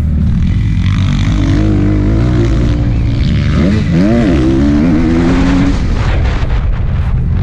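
Dirt bike engine running under throttle over a heavy low rumble. Its pitch climbs about a second and a half in, dips and rises sharply twice around the middle, then holds before fading back into the rumble.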